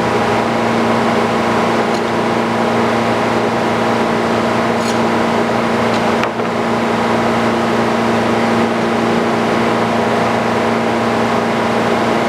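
Sawmill's engine running steadily at one pitch, with a brief dip and a click about six seconds in.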